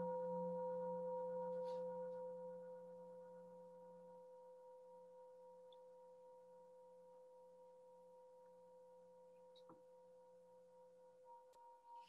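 Large metal singing bowl ringing on after a single mallet strike. Several steady tones hold together, the lowest one wavering, and fade slowly over several seconds to a faint hum.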